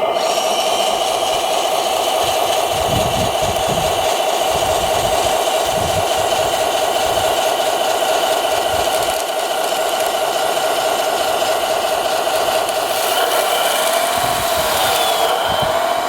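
Small electric motors of radio-controlled construction models whining steadily, with irregular low rumbles underneath; the whine rises and falls in pitch near the end as the motors are worked.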